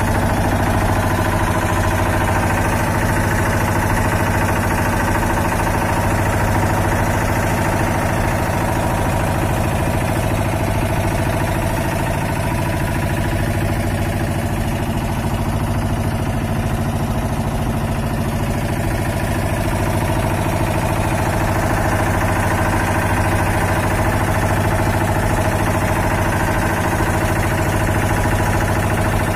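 A boat's engine running steadily at an even speed, a constant loud drone with no change in pitch.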